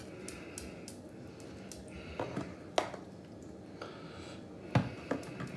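A few short, sharp clicks and knocks of metal utensils, a spoon and a knife, against a plastic jam tub and a wire cooling rack as jam is scooped and spread on a sponge cake. The loudest comes near the end.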